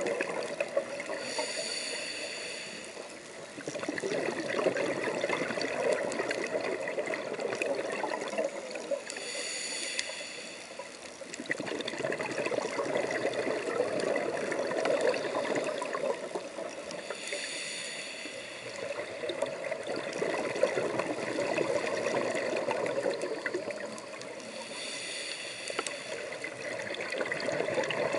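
Scuba diver breathing through a regulator underwater: a short hissing inhale about every eight seconds, four times, each followed by a long rush of bubbling exhaled air.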